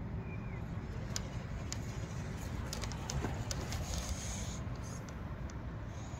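Wind rumbling on the microphone, with scattered faint clicks and a short chirp near the start.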